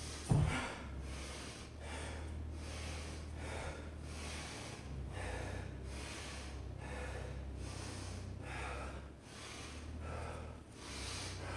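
A person breathing hard from exercise, quick heavy breaths roughly one a second. A single thump about a third of a second in, over a low steady hum.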